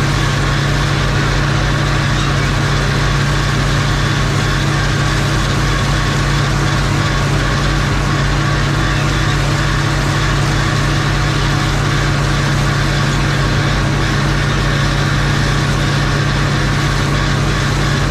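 Tractor engine running steadily with an even, unchanging drone.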